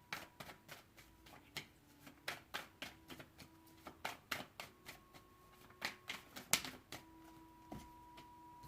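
Tarot cards being shuffled and handled: irregular crisp snaps and taps, a few a second, with a sharper one about six and a half seconds in. Faint steady tones hum underneath.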